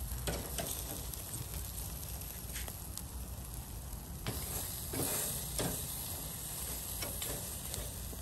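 Meat sizzling on a wire grill rack over a charcoal fire: a steady hiss with a few short, sharp crackles scattered through it.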